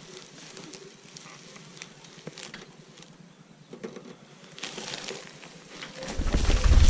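An all-terrain wheelchair rolling over grass and a dirt track, its tyres and frame giving scattered small clicks and rattles. The noise grows toward the end, with a loud low rumble in the last second.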